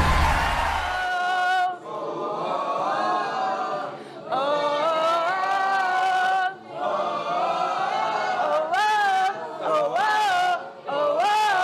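Backing music with a heavy beat fades out about a second in. Voices then sing unaccompanied in short phrases, with long held notes, upward slides and brief gaps between them.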